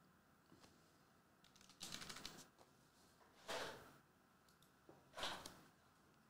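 Faint handling noises of a cardboard trading-card hobby box: a quick run of clicks about two seconds in, then two short rustling scrapes as the box is moved on the table.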